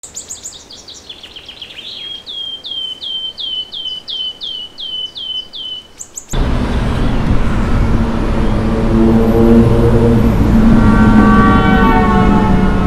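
A songbird repeats a fast series of sharp, downslurred chirps. About six seconds in, this cuts abruptly to much louder dense city traffic noise, with several held horn tones blaring over it until it cuts off near the end.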